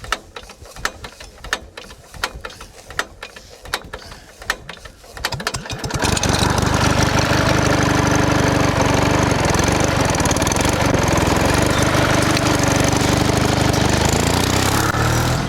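Scattered clicks and knocks, then about six seconds in a motor starts running, loud and steady, until it cuts off suddenly at the end.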